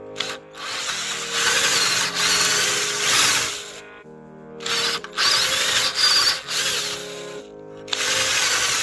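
Power drill running in bursts: one run of about three seconds, then several shorter runs with brief pauses between, its motor whine wavering under load. Background music plays underneath.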